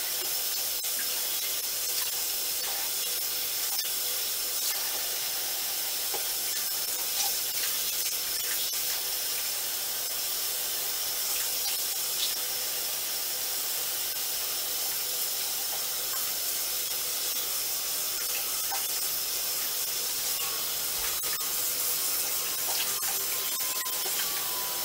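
Water running steadily from a bathroom sink faucet and splashing over hands that rinse and squeeze a makeup sponge in the stream.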